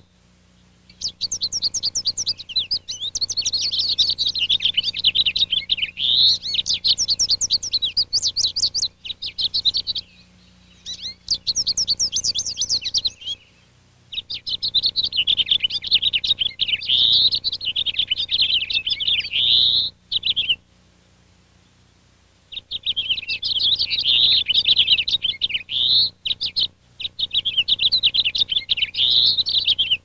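House finch singing: long, fast warbling songs with rising slurred notes, in four bouts of a few seconds each with short pauses between.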